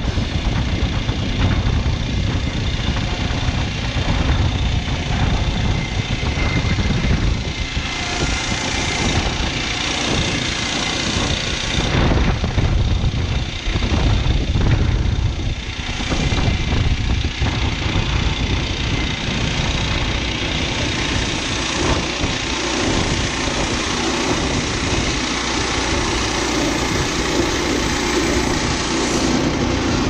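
Gas engine of a Woodland Mills HM122 portable bandsaw mill running steadily under load as the band blade saws through a fir cant, with wind on the microphone.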